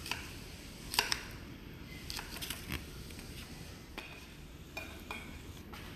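A fork and serving utensils clinking and tapping against plates as food is dished out: a scattering of light, irregular clicks, the sharpest two about a second in.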